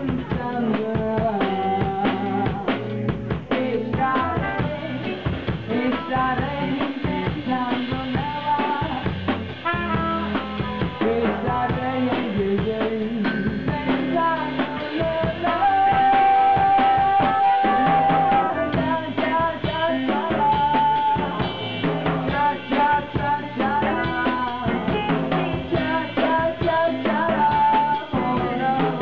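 Live band music with a drum kit keeping a steady beat under melody lines. One long held note runs for about three seconds, starting about sixteen seconds in.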